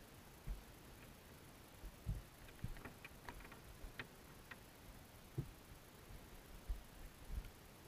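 Fish knocking against a GoPro's waterproof housing and the wire mesh of a minnow trap underwater: faint, irregular sharp ticks and dull thumps, muffled through the housing.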